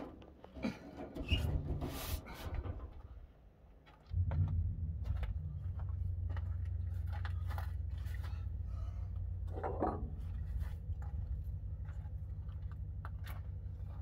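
A wrench clicking and scraping against a starter mounting bolt as it is tightened. About four seconds in, a steady low hum starts and keeps going under the occasional clicks.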